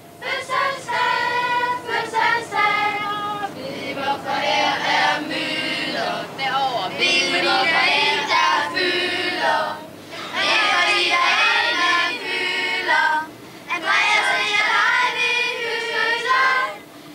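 A group of children singing a birthday song together, line by line with short pauses between phrases.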